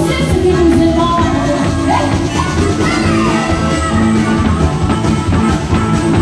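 Live country-rock band playing: harmonica into a microphone over electric guitars and drums, with a woman singing.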